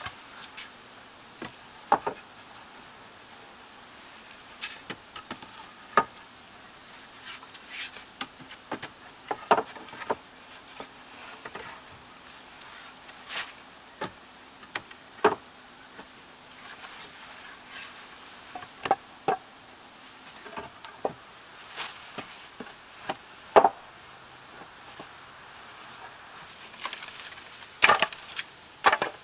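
Wooden poles and sticks knocking and clacking together at irregular intervals as they are handled and set into a shelter frame, some knocks sharper and louder than others.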